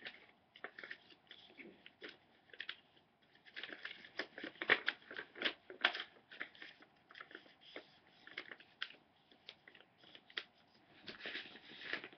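A sheet of notepaper being folded and creased by hand: irregular crackles and rustles, busiest about four to six seconds in and again near the end.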